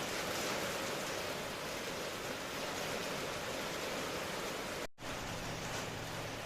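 Steady rainfall, an even hiss of falling rain. It cuts out for a split second about five seconds in, then resumes.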